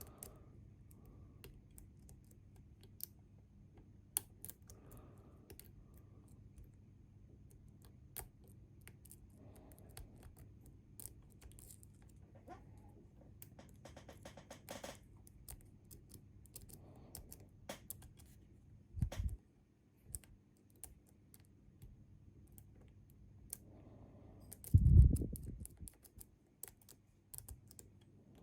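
Small scattered clicks and scratching of lock picks working the pins of a Bi-Lock cam lock under tension. A dull thump comes about two-thirds through, and a louder one near the end.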